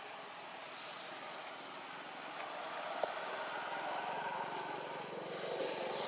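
Steady outdoor background noise that grows slightly louder, with one short sharp click about three seconds in.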